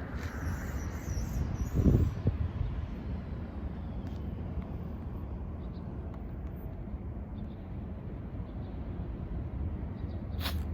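An old Shiba Inu sneezing once, a short sharp burst about two seconds in, over a steady low rumble. A sharp click comes near the end.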